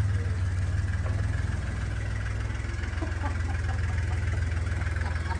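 A vehicle engine idling steadily, a low even rumble.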